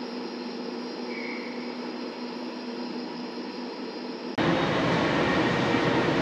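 Steady indoor room hum with a few held tones. About four seconds in it cuts off abruptly to a louder, rougher rushing noise.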